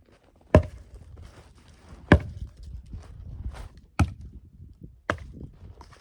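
Four sharp wooden knocks spaced one to two seconds apart, like blows on a log or a piece of firewood being set down hard; the second knock, about two seconds in, is the loudest.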